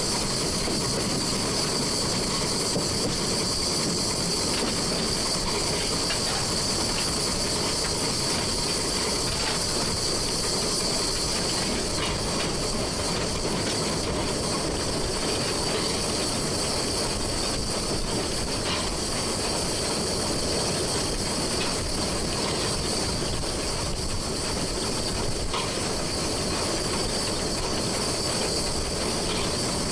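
1925 La Meuse steam locomotive running, heard from the cab: a steady hiss over the rumble of wheels on the rails, with an occasional faint click from the track.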